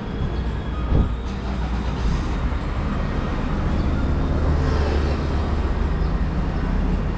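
Low, steady rumble of city street traffic, with a single thump about a second in.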